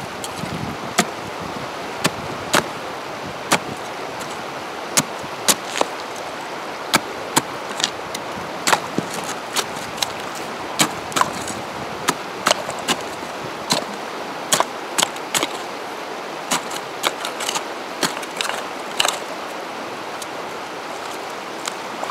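A short parang blade chipping a hole in shore ice: a run of sharp, unevenly spaced chops and scrapes, about one a second, over the steady rush of a flowing river.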